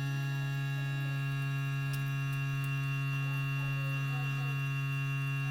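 Aquafor Morion DWM-101S reverse-osmosis filter's booster pump humming steadily: a deep, even hum with a stack of higher tones above it. The owner expects it to settle down soon. Its round-the-clock humming had been caused by a missing water damper on the main (red) tube, which has now been fitted.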